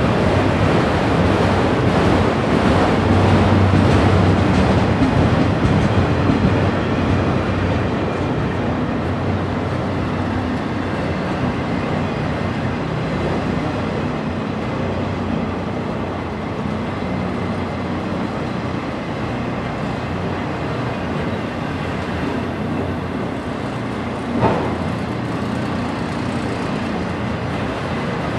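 Freight train of autorack cars rolling past: steady wheel-on-rail noise and car rattle, a little louder in the first few seconds, with one brief clank near the end.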